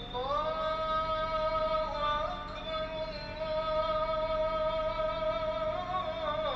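A solo singing voice holding one long, high note with small ornamental turns, sliding down near the end.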